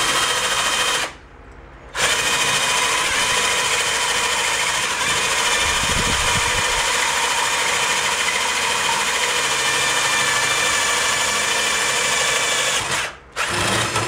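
Cordless drill boring into a metal bar clamped in a vise, enlarging a hole with a bigger bit, with a steady whine. It runs about a second, stops briefly, then drills steadily for about eleven seconds before stopping near the end.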